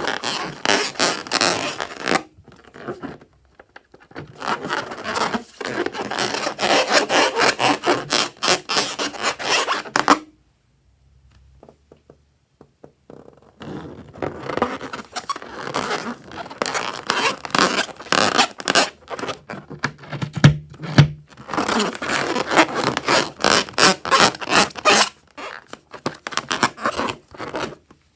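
Slime being mixed, a rapid sticky crackling and scraping that comes in long bursts, with a break of about three seconds midway.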